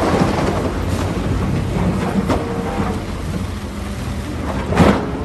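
Caterpillar wheel loader's diesel engine running as it tips a bucket load into a dump truck, the load pouring and rumbling into the steel bed, with one loud knock near the end.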